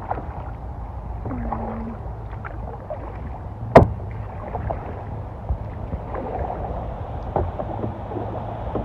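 Kayak being paddled: paddle strokes and small knocks and splashes over a steady low rumble, with one sharp, loud knock a little under four seconds in.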